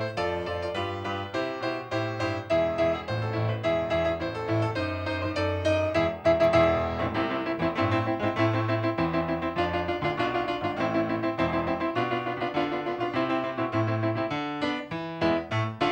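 Piano music: a quick tune of many short notes over a moving bass line.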